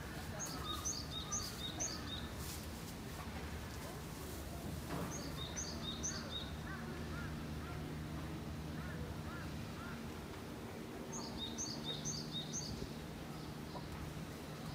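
A small songbird singing a quick phrase of high chirps three times, with pauses of a few seconds between. A steady low hum runs underneath.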